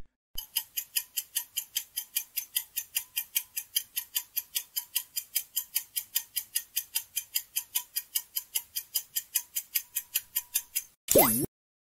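Countdown-timer clock ticking sound effect: fast, even ticks, about four or five a second, for about ten and a half seconds, marking the time allowed to answer. Near the end the ticking stops and a short swooping sound effect dips in pitch and rises again.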